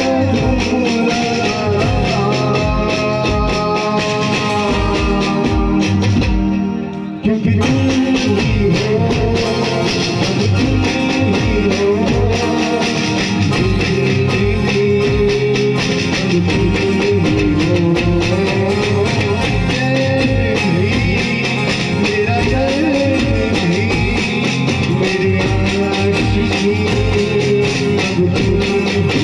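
A song with singing over a steady beat; the music briefly thins out about seven seconds in.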